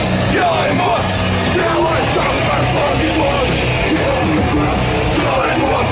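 Live punk rock band playing loud, with shouted vocals over the music.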